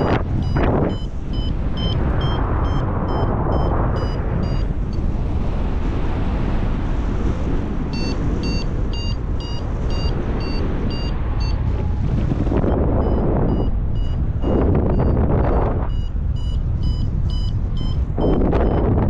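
Paraglider's variometer beeping in short, regular pulses about twice a second, the tone that signals the glider is climbing in lift; the beeping pauses for about three seconds in the middle and resumes. Heavy wind rush on the microphone throughout, surging in gusts.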